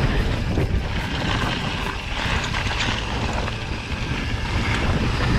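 Mountain bike rolling down a loose gravel trail: tyres crunching over the stones and the bike rattling, with wind buffeting the camera microphone.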